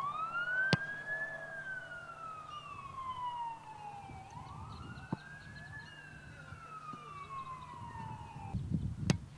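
An emergency-vehicle siren wailing in a slow rise and fall, twice over, stopping abruptly near the end. Under a second in comes a sharp thump of a football being punted, and another sharp knock follows shortly before the end.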